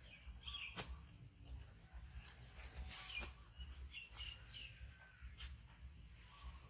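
Birds chirping in short, scattered calls, with a few sharp clicks and a low rumble underneath.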